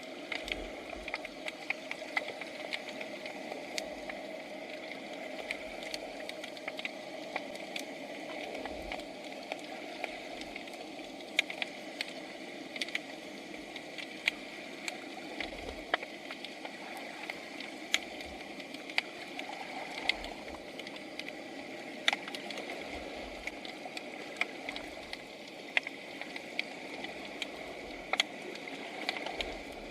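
Underwater ambience picked up by a submerged camera: a steady rushing hiss with many sharp, irregular crackling clicks, and now and then a dull low thump.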